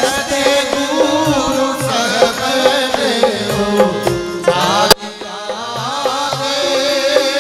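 Rajasthani devotional bhajan performed live: a voice sings over a harmonium, with a steady percussion beat and hand-clapping. About five seconds in there is a sharp click, and the music dips in level for a moment before building back up.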